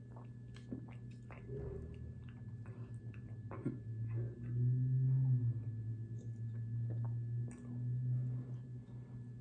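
A person gulping a fizzy drink from an aluminium can, with wet swallows and small clicks of lips on the can. From about four seconds in come louder, low throaty gulps, over a steady low hum in the room.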